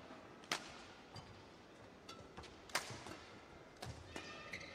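Badminton racket strokes on a shuttlecock during a rally: two sharp cracks about two seconds apart, then a few fainter smacks and clicks near the end.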